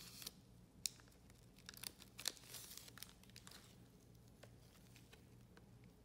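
Faint crinkling and rustling of trading cards and their plastic sheets handled in gloved hands. A few sharp crackles stand out, the loudest a little before one second in and just past two seconds in.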